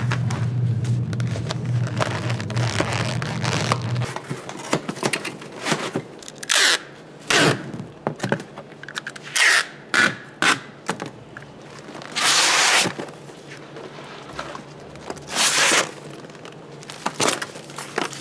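Food and utensil handling in a kitchen: a series of short scrapes and rustles, one to two seconds apart, after a low steady hum that stops about four seconds in.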